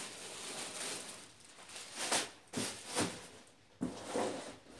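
Plastic bag crinkling and rustling as it is pulled off and worked around an electric monocycle: a steady rustle at first, then several short bursts of crinkling.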